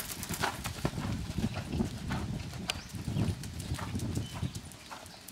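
A horse's hooves thudding on sand arena footing at the canter, growing a little fainter near the end.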